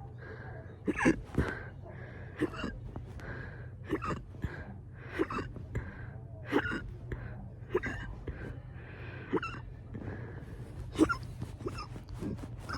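A person hiccuping over and over, fast: short, sharp hiccups about once a second, sometimes two close together. The hiccups set in right after a burp.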